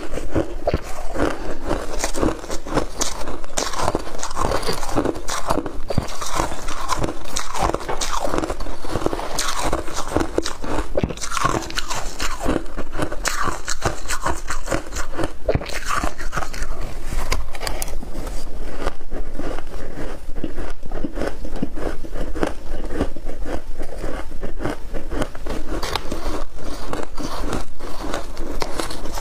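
Shaved ice being bitten and chewed close to the microphone: a continuous run of crisp crunches in quick succession.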